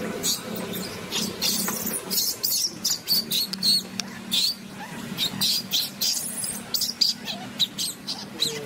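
Baby macaque squealing in a rapid series of short, shrill cries, the distress cries of an infant being handled roughly by an adult.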